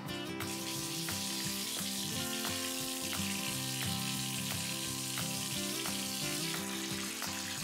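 Water running from a bathtub spout into an empty tub, a steady hiss that starts as the tap is turned on, with background music playing over it.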